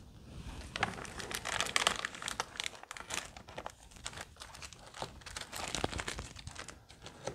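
Crinkling and rustling with many small irregular clicks as someone rummages through packets of capacitors for guitar wiring.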